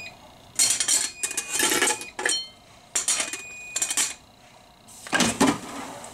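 Plates and a plastic bag clattering and rustling in irregular bursts as things are moved about the counter. Near the end comes a louder clunk as the basket drawer of a T-fal air fryer is pulled open.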